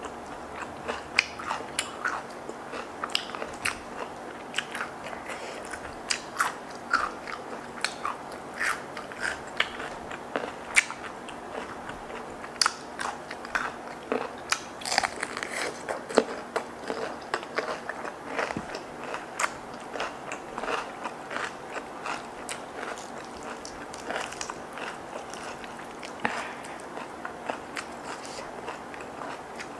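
Close-miked eating: crisp bites, crunching and chewing of fried chicken and petai beans, with many sharp irregular clicks and crackles as petai pods are split open and the chicken is torn apart by hand.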